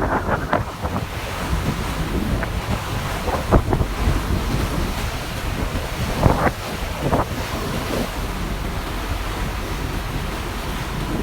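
A moving ferry: water rushing past the hull and wind buffeting the microphone over a steady low rumble, with a few brief louder surges near the start, about three and a half seconds in, and around six to seven seconds in.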